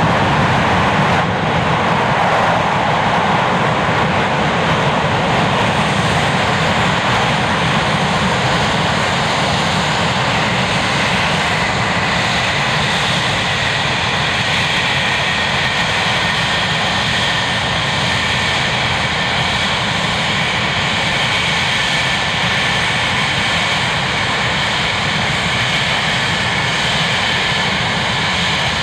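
English Electric Lightning F6's Rolls-Royce Avon turbojets running loud on the ground: the reheat is lit at first and cuts out about a second in, leaving a steady jet roar. A high turbine whine comes up over the roar about halfway through as the jet starts to roll.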